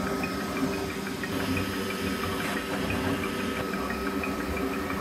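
Bambu Lab 3D printer running, a steady mechanical hum with a faint high whine that stops about three and a half seconds in.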